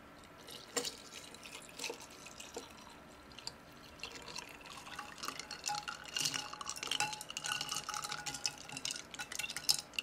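Coffee poured over ice cubes in a glass, with scattered ice clicks and drips. From about four seconds in, a long spoon stirs the iced coffee, setting the ice cubes clinking and ringing against the glass.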